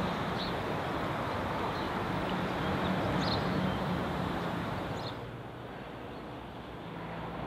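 Steady outdoor background noise with a low hum underneath and a few faint high chirps. About five seconds in it drops to a quieter, duller rumble.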